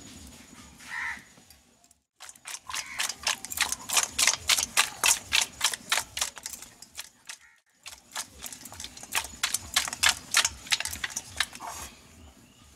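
A hand rubbing and tossing raw duck meat with turmeric and salt in a stainless steel colander: quick wet slaps and metal rattles, several a second. They come in two bouts with a short break in the middle.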